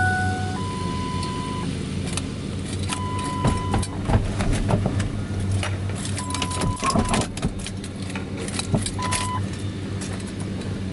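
Keys jangling and clicking, with a high electronic beep sounding four times in stretches of uneven length, over a steady low hum.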